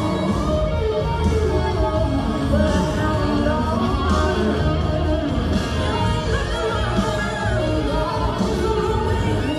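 Dance music for west coast swing: a song with a singer over a steady beat.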